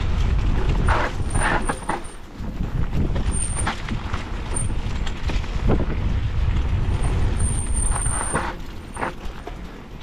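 Mountain bike ridden down a dry dirt trail, heard from a camera on the bike: a steady low rumble of wind and tyres on dirt, with short rattling scrapes over bumps several times through, easing off near the end.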